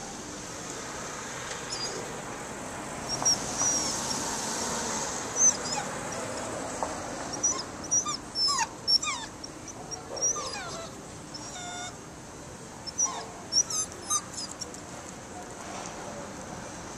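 Small dog leashed to a pole whimpering and whining in clusters of short, high-pitched cries, many falling in pitch, the distress of a dog left tied up while its owner is out of sight.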